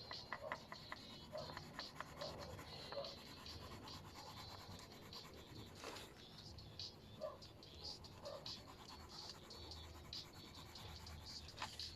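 Faint, quick strokes of a colouring tool scratching and rubbing on paper, in short irregular runs, with an occasional sharper tick.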